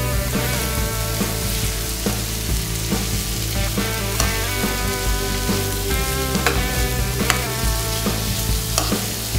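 A metal spoon stirs diced bell peppers and corn in oil in a nonstick pan, with sizzling and scattered clicks of the spoon against the pan.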